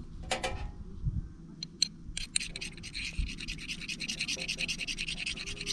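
Ferro-rod fire starter being scraped, one stroke near the start, then a quick run of rapid scrapes from about two seconds in, to throw sparks onto tinder.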